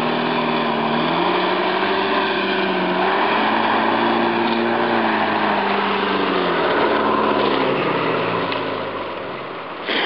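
Small 4x4 off-roader's engine revving up and down, its pitch rising and falling several times, with water splashing as it drives through a shallow pool. The engine fades near the end, and a sharp click comes just before it ends.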